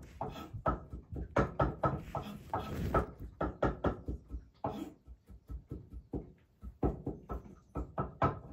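Cat chewing a piece of carrot close to the microphone: a steady run of short wet chewing sounds, about three a second.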